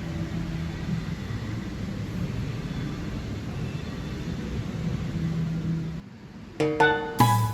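A steady low rumble that cuts off about six seconds in, followed by music with bright, bell-like plucked notes near the end.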